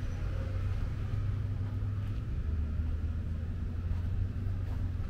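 Steady low rumble, dropping slightly in pitch about halfway through.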